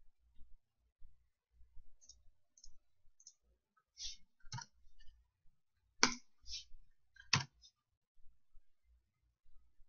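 Computer mouse clicks and keystrokes while a spreadsheet formula is entered: a few faint ticks, then four sharper clicks in the second half, the loudest about six seconds in.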